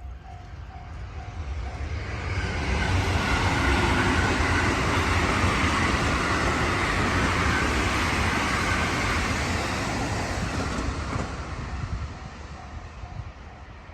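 A train passing on the line: its running noise swells over the first few seconds, stays loud and steady, then fades away near the end.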